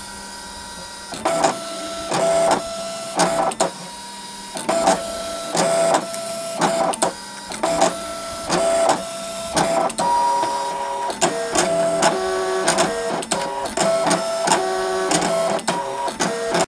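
Brother ScanNCut cutting machine at work: its motors whir in short stop-start moves as the blade carriage and mat travel, cutting out paper pieces. The pitch of the whine changes from move to move, with small clicks between them.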